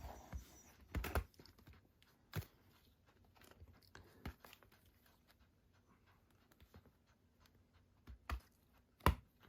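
Cardboard collector's boxes being handled and set down: a few scattered light knocks and taps with faint rustling between them.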